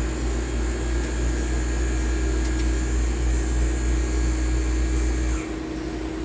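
CNC lathe running: a steady machine hum with a high whine, which cuts off about five seconds in, leaving a quieter hum with a steady tone.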